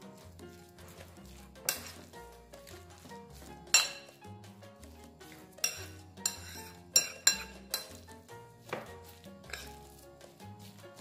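Metal spoon stirring raw ground-beef mixture on a ceramic plate, clinking sharply against the plate about eight times, the loudest about four seconds in and several close together between six and seven and a half seconds in. Background music with sustained low notes plays under it.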